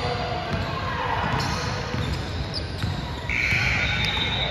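A basketball bouncing on a gym floor amid the noise of a game in a large hall, with a few sharp knocks. A louder high-pitched sound, about a second long, starts just past three seconds in.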